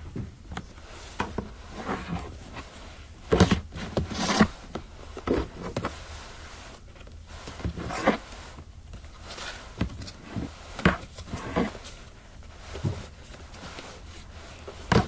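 Handling noises from a plastic tray being gripped and turned on a carpeted floor: scattered soft knocks and rubs, with no steady sound between them.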